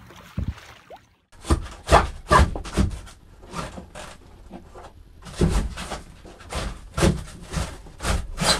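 Irregular loud knocks and bangs, roughly two or three a second and starting about a second and a half in, as the old factory icebox in a 1965 Alberg 30 sailboat's cabin is worked loose by hand.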